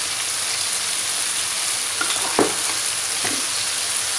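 Chopped tomatoes frying in oil in a wok, a steady sizzle, with two short knocks a little past the middle.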